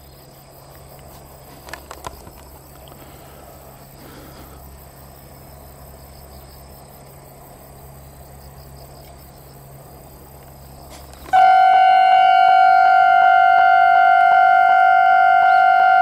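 Quiet rural background with insects chirping; about eleven seconds in, a Japanese railway level crossing's warning alarm starts abruptly and rings loudly, a steady repeating electronic bell tone, signalling that a train is approaching.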